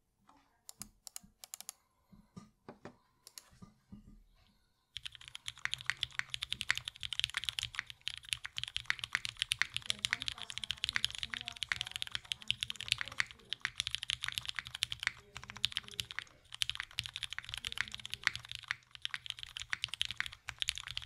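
Typing on a gasket-mounted mechanical keyboard with an aluminium plate, lubed Cherry MX Black linear switches and GMK keycaps. A handful of separate keystrokes over the first few seconds, then fast continuous typing from about five seconds in, with a few short pauses.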